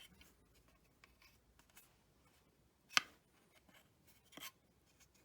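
Two sharp clicks of hard plastic shower-head parts being handled, a clear one about three seconds in and a fainter one about a second and a half later, with little else to hear.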